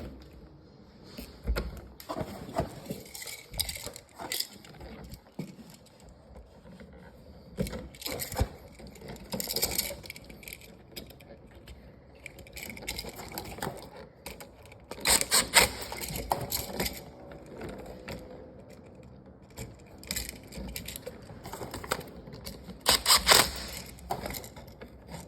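Electrician's hand tools and copper wire being handled: intermittent clicks, snips and scrapes in short bursts as wires are cut, stripped and fastened to a three-way switch. The loudest bursts come about two-thirds of the way through and near the end.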